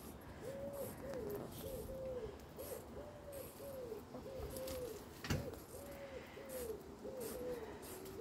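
Domestic hens making soft, low contented murmuring calls: a steady run of short, faint notes, about two or three a second. A single sharp click about five seconds in.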